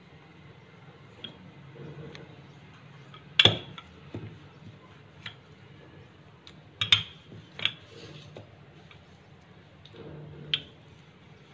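Scattered sharp knocks and clicks of kitchen utensils on a worktop while bread slices are rolled flat and the rounds handled. The loudest knock comes about three and a half seconds in, with a few more close together around seven seconds in.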